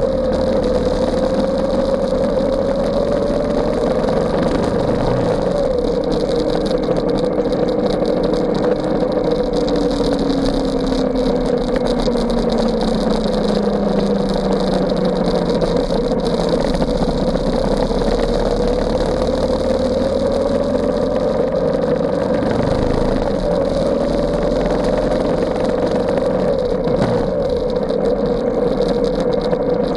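Ducati XDiavel S's 1262 cc L-twin engine running steadily at cruising speed, an even drone that holds its pitch with only slight wavering; about a third of the way in, a lower tone slowly falls away.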